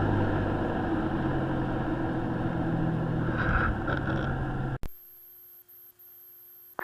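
Sting Sport light-sport airplane's engine and propeller running steadily at low taxi power. It cuts off abruptly near the end, leaving only a faint steady hum.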